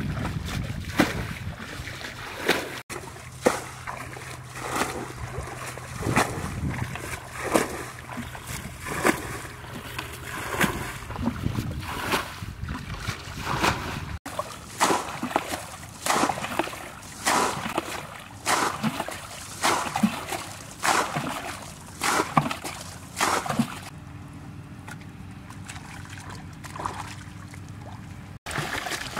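Muddy pool water being bailed with a plastic bucket: repeated scoops and splashes as each bucketful is flung out, about one a second. The splashes stop for a few seconds near the end.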